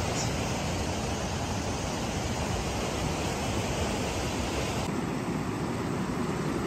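Steady rush of waves washing over a rocky shore, an even roar of water with no break; about five seconds in, the hiss in the upper range drops away abruptly.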